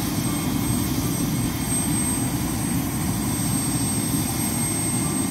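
Bell 206 JetRanger helicopter running on the ground with its main rotor turning: a steady turbine and rotor noise, heaviest in the low end, with a thin steady high whine over it.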